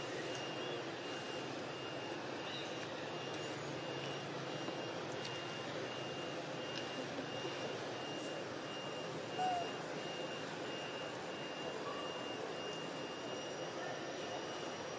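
Steady outdoor background noise, a constant hiss-like wash with a thin high steady whine over it and a faint regular tone pulsing about twice a second.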